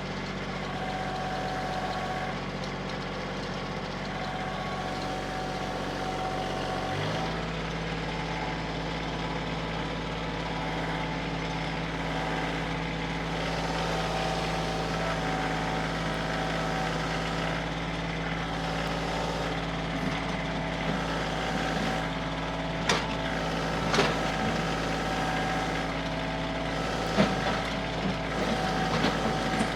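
Compact diesel tractor engine running steadily. Its engine note shifts about seven seconds in, and a few sharp knocks sound over it in the last ten seconds.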